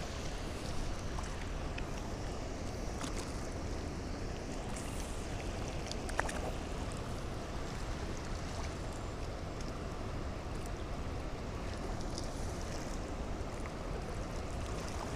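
Steady rushing of a fast river current, mixed with wind on the microphone, with a few faint clicks, the clearest about six seconds in.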